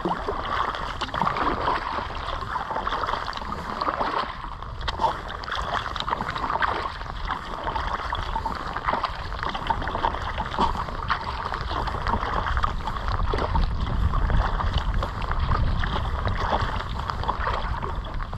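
Lake water lapping, gurgling and splashing against a moving kayak's hull as it is paddled across light chop, with short splashes scattered throughout. A low wind rumble on the microphone grows stronger in the second half.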